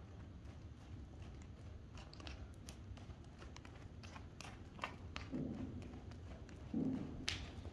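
Faint, irregular crunching of a walking horse's hooves and a handler's footsteps on soft dirt arena footing, with two louder dull thuds about five and seven seconds in.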